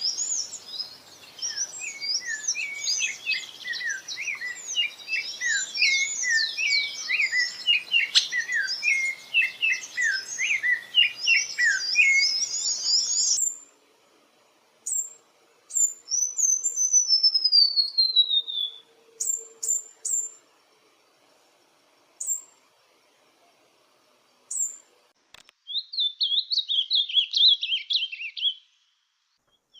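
Songbirds singing, in separate recordings joined one after another. First comes a dense run of quick chirps and trills lasting about thirteen seconds, which cuts off abruptly. Then come scattered short chirps and one long whistle falling in pitch, and near the end a fast warbling phrase.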